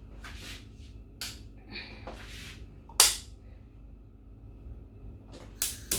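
Clicks and knocks from a kitchen cooker being switched on, with one sharp click about three seconds in, the loudest, and two more near the end, between short rustling noises.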